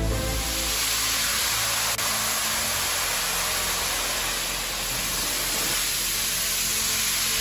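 Ultra-high-pressure water jet, rated around 40,000 psi, blasting hardened plastic off an extruder screw: a steady hiss of spray.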